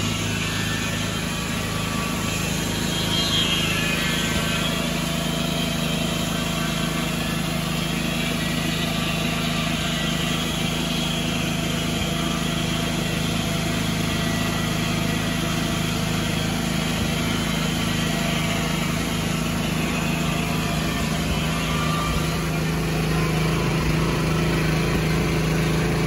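Mighty Mite circular sawmill running under load: its Volkswagen-derived gas engine hums steadily while the circular blade saws lengthwise through a log.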